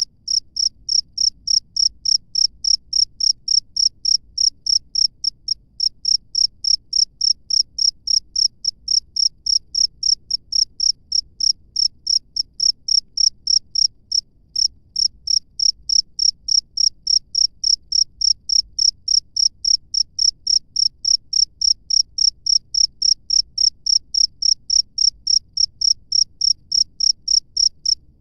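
A cricket chirping, a high-pitched pulse repeated steadily about three times a second, with a brief break near the middle.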